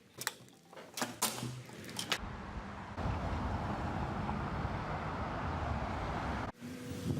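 A car driving, heard from inside: a few clicks and knocks, then steady road and engine rumble with a rushing noise from about two seconds in, which cuts off abruptly near the end.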